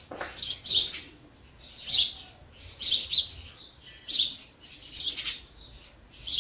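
A bird calling over and over in short high chirps, about one a second and sometimes two in quick succession.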